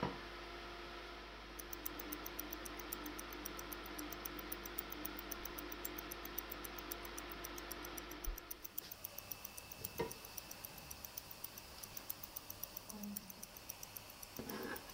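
Clock-ticking sound effect: quick, evenly spaced ticks running as a cooking timer counts down. At the very start a glass pan lid clinks as it is set down.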